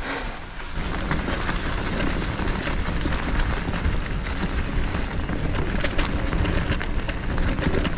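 Riding noise from an e-mountain bike on a muddy trail: wind buffeting the microphone and a steady rumble of tyres and trail, with many small rattles and knocks, setting in about a second in.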